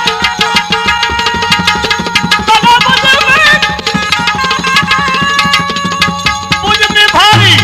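Instrumental interlude of live folk devotional music: tabla playing a quick, steady rhythm under held melodic notes, with no singing.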